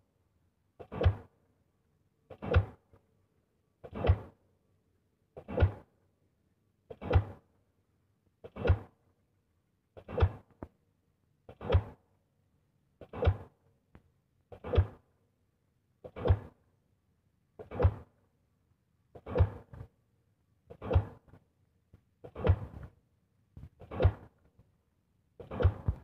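Diesel pile hammer striking a precast concrete pile in a steady rhythm, about one blow every second and a half, heard from a distance. A faint steady hum carries on between the blows.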